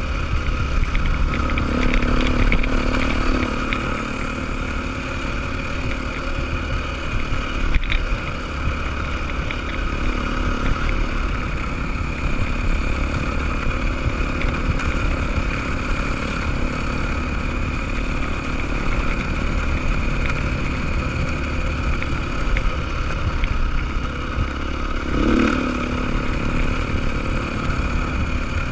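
Beta enduro motorcycle engine running steadily at riding speed, heard from on board with heavy low wind rumble. There is a single sharp knock about eight seconds in, and a short rise and fall in engine pitch near the end.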